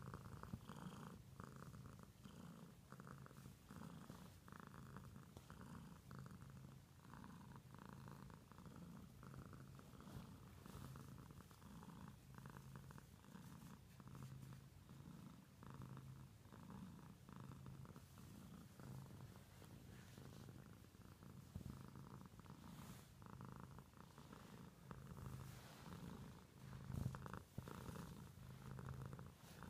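Domestic cat purring faintly and steadily while being stroked, the purr swelling and fading with each breath in and out. One brief louder bump comes near the end.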